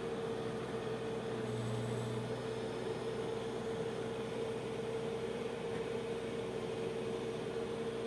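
Case 570ST backhoe loader's diesel engine running steadily under hydraulic load as the backhoe arm digs, an even hum with a brief low swell about two seconds in.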